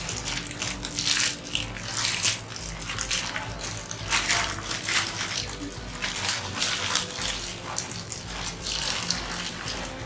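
Clear plastic baglog bags crinkling and rustling in irregular bursts as composted banana-leaf substrate is packed and pressed into them by hand.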